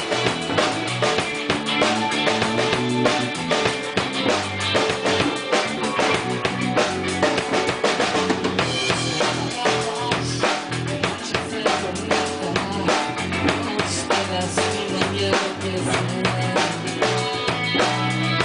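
A band playing an instrumental passage: a drum kit with steady bass drum and snare hits under sustained low notes and other instruments, picked up by a room microphone.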